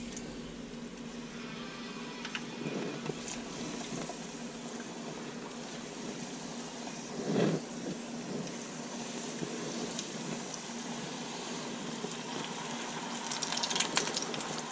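Breaded catfish nuggets deep-frying in hot oil in an electric deep fryer: a steady sizzle, crackling louder near the end as more pieces are lowered in. A brief low sound about halfway through.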